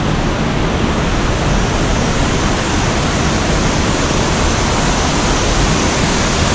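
Devi's Fall waterfall: a loud, steady, even rush of falling water.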